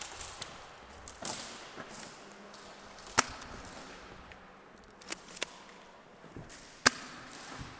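Scattered single airsoft gun shots: sharp cracks a second or more apart, over a low background. The two loudest come a little after three seconds in and near the end.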